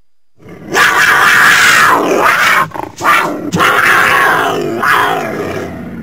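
Cougar (mountain lion) vocalising: a loud, rough call that starts about half a second in, breaks off briefly near the middle, then resumes and trails off toward the end.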